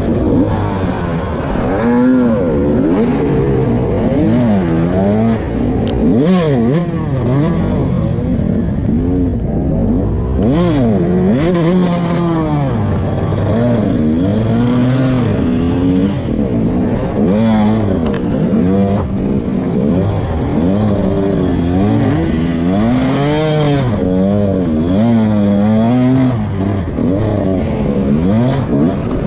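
KTM 125 two-stroke dirt bike engine revving up and down over and over as the throttle is worked on a rough enduro track. A few short clattering knocks break in.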